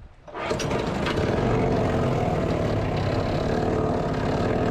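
A 212cc Honda-clone single-cylinder four-stroke engine driving a small boat's surface-drive propeller starts up about half a second in. It then runs steadily and loudly.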